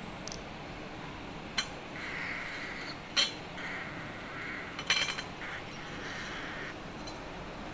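Sharp clicks and clinks of a cockatiel playing with its toys: single knocks about one and a half and three seconds in, then a quick rattle of several clicks around five seconds. Soft scratchy rustling comes in between.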